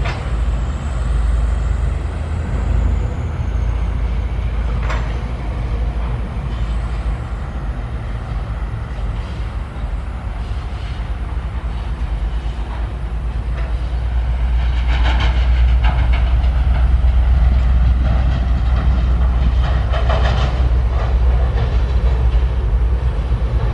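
SANY SY135F excavator's diesel engine running steadily at work, getting louder about halfway through. Two short bursts of scraping noise come near the end.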